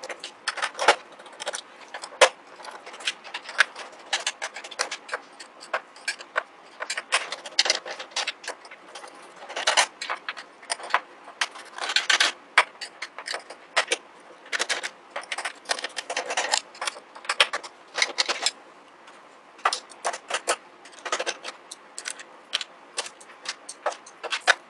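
Screws being undone and handled on the plastic bottom case of a Casio CTK-1150 keyboard: many irregular small metal and plastic clicks and rattles.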